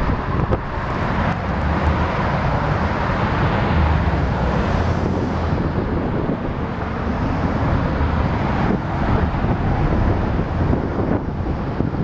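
2016 Buick Cascada convertible driving with its top down: steady road, wind and traffic noise.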